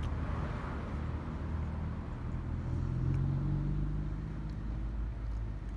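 A motor vehicle's engine running with a steady low hum, its pitch rising slightly between about two and four seconds in.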